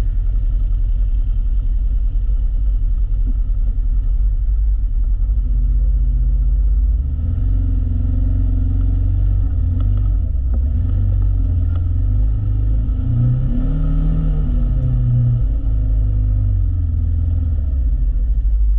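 Side-by-side UTV engine running under way, with a heavy low rumble. Its pitch rises and falls several times past the middle as the throttle changes, and a few light knocks come through around the same stretch.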